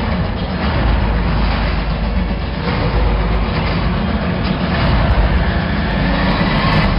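Film trailer soundtrack of dense action sound effects and score with a heavy low rumble, played over loudspeakers and recorded on a mobile phone, so it sounds muddy and low in quality.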